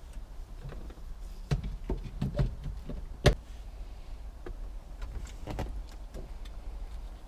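Scattered clicks and knocks of plastic dashboard parts and wiring connectors being handled, the sharpest one about three seconds in.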